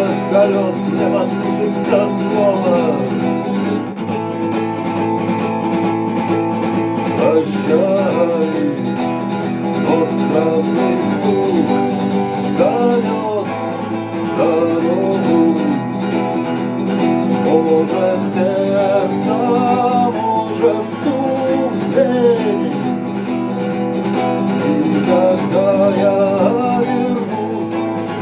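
Acoustic guitar playing the wordless instrumental break of a song, with a gliding melodic line over the chords.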